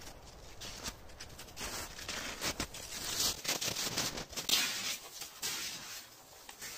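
Handling noise of a camera being picked up and carried against a canvas jacket, with rustling and crackling that is loudest in the middle. Toward the end come a few crunching steps of wooden snowshoes in snow.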